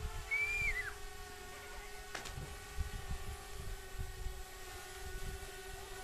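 Quadcopter drone hovering overhead, its propellers giving a steady hum, with wind gusting on the microphone.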